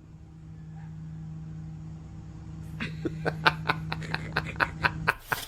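A steady low hum, joined about halfway through by a person laughing in short, quick pulses.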